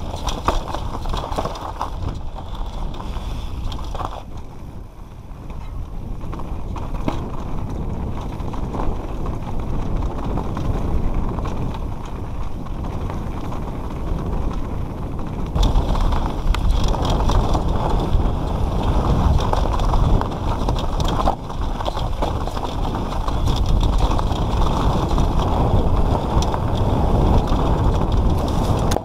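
Mountain bike ridden fast down a rough dirt forest trail: a continuous rumble of tyres over loose dirt and stones, with the chain and frame rattling and many small clicks and knocks. It gets louder about halfway through.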